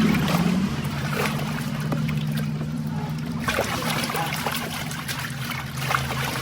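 Water trickling and splashing as a muddy toy is washed by hand, with small knocks of the toy being handled. A steady low hum runs underneath.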